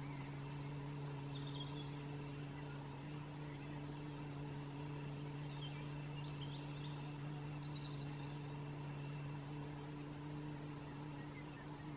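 A woman humming one long, low, steady tone on a single pitch through a slow exhale: the Qi Gong healing sound of the lungs, made softly without pushing the air out. Faint bird chirps come through a couple of times.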